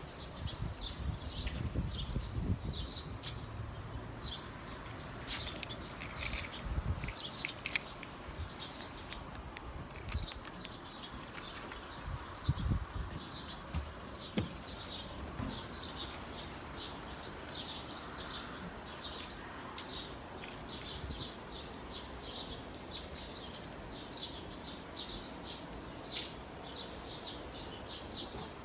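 Birds chirping over and over, short high chirps a few times a second, over a steady hiss. Low rumbling runs under the first several seconds.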